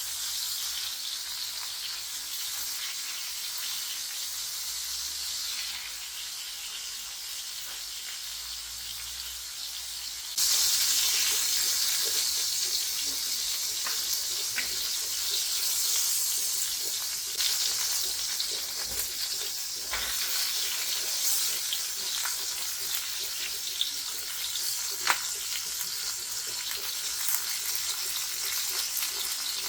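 Food sizzling in hot oil in a pan. About ten seconds in, the sizzle suddenly grows louder and stays so, with scattered crackles and pops.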